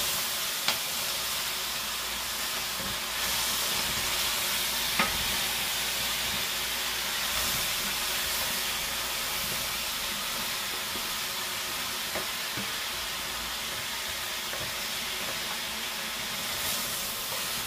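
Sliced vegetables (courgettes, carrots, onion, celery) sizzling steadily in oil as they are sautéed and stirred in a pot. Twice the spoon gives a light knock against the pot.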